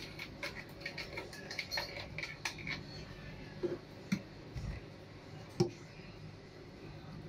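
Plastic blender jar clicking and tapping as icy slush is scooped and shaken out of it into a cup, followed by a few dull knocks of the jar against the blender base, the loudest a little over halfway through.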